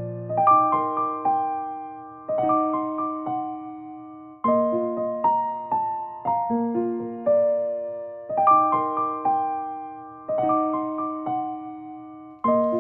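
Background music: a gentle keyboard melody of single struck notes that fade away, in short phrases that start afresh about every two seconds.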